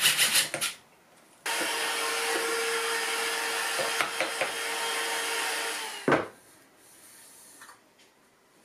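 A Bosch cordless drill bores into a cedar block in pulses and stops under a second in. Then a vacuum cleaner runs steadily for about four and a half seconds, sucking up the drill shavings, and switches off with a short clunk.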